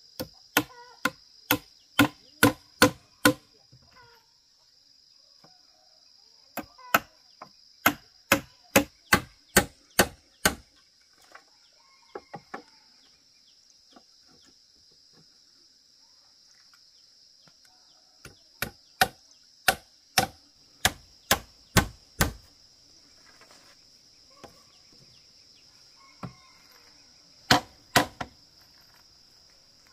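Hammer striking bamboo slats in runs of about eight to ten blows, two to three a second, with pauses between and a few lighter taps. A steady high insect drone runs underneath.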